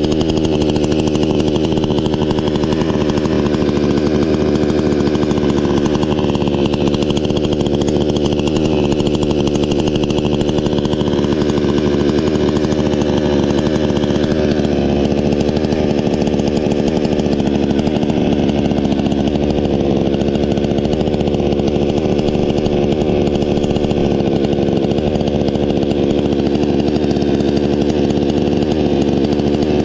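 Yasuka YSK 6800 XT-22L two-stroke chainsaw engine running steadily at one unchanging engine speed, with no revving.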